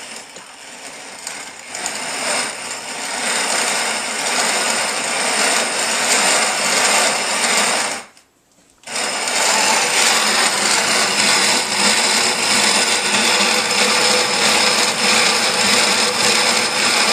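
Hand-cranked GrainMaker grain mill grinding grain into flour: a loud, continuous gritty grinding. It stops for about a second about eight seconds in, then resumes.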